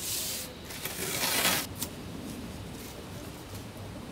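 Blue painter's tape being pulled off the roll: two short ripping bursts, the second and louder one about a second in, followed by a small click.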